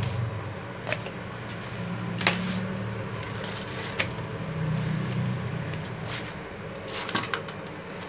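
Several short knocks and clunks, a second or more apart, from a mini metal cut-off saw (an angle grinder mounted on a cutting stand) being handled and set down, over a steady low hum.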